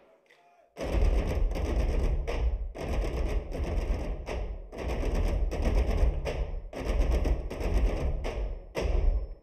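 Loud runway soundtrack of dense, distorted noise over very deep bass, starting about a second in and chopped into rapid stuttering stretches that sound like machine-gun fire. It cuts off abruptly at the end.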